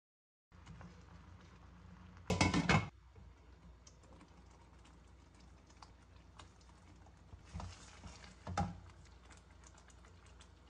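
Cooking sounds from a kadai of butter chicken gravy: scattered small clicks and ticks over a low steady background. A louder clatter of the utensil against the pan comes about two seconds in, and two shorter knocks come near the end.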